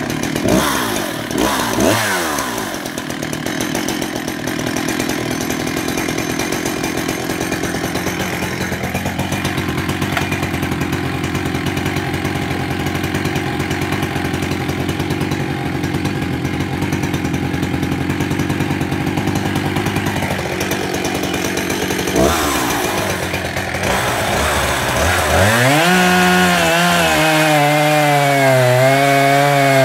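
Husqvarna 371XP 71cc two-stroke chainsaw, just restarted, revved briefly a couple of times and then idling steadily for about twenty seconds. In the last few seconds it is opened up to high revs and cuts into a log, the engine note wavering under load.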